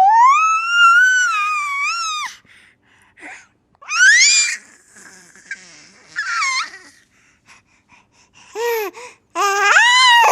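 Baby's high-pitched laughing squeals: a long squeal of about two seconds, then shorter rising squeals about four and six seconds in and two more near the end, with breathy gasps between.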